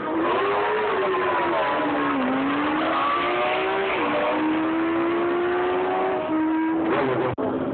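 Two motorcycles accelerating hard down a drag strip at full throttle, engine pitch climbing and then dropping back at each of about three gear changes.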